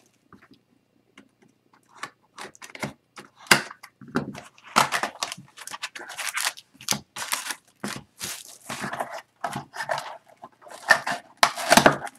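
An Upper Deck SPX hockey card box being opened by hand, with the plastic wrapping and cardboard torn and handled and the foil card packs pulled out. Irregular crinkling and tearing starts about two seconds in.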